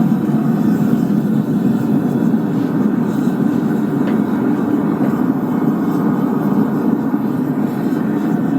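Forge running with a steady, even rushing noise while a 6 mm steel plate disc heats inside it; a faint click about four seconds in.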